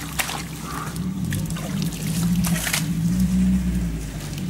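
A vehicle engine idling steadily, a little louder from about a second in, over wet scrapes and splashes as a plank is worked into a muddy, water-filled rut.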